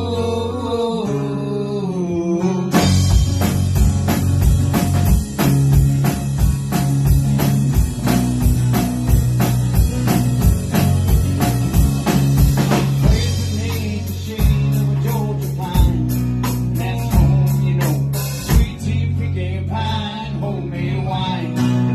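Live rock band playing: acoustic and electric guitar, bass and keyboard over a drum kit. The full drum beat and bass come in about three seconds in, and the band keeps a steady rhythm from there.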